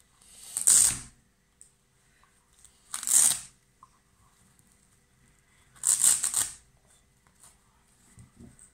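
Hook-and-loop (Velcro) fasteners on a felt quiet book being ripped apart as felt pieces are pulled off the page: three short rips, about half a second in, at about three seconds and at about six seconds, the last one longest.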